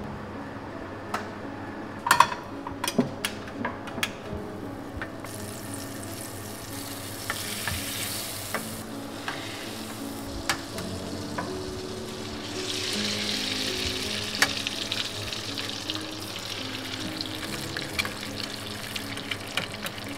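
Eggs frying in a small aluminium pan on a gas burner: a sizzle that swells twice, with sharp clicks and taps of the pan and a fork about two to four seconds in. Soft background music plays underneath.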